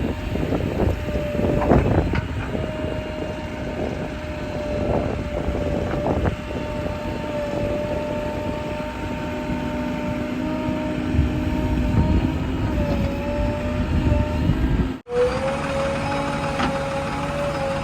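Diesel engine of a JCB 3DX backhoe loader running under work with a steady whine, with irregular knocks and clatter in the first few seconds. The sound cuts out abruptly for a moment about 15 seconds in and resumes with the engine still running.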